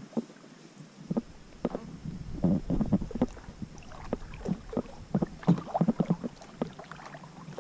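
Kayak being paddled: the paddle blade dipping and splashing in the water, with scattered small clicks and knocks.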